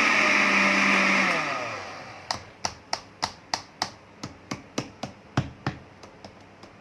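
Blender grinder attachment running at high speed while grinding sesame seeds, switched off about a second in and winding down with a falling whine. Then a run of sharp knocks, about three a second, fading toward the end.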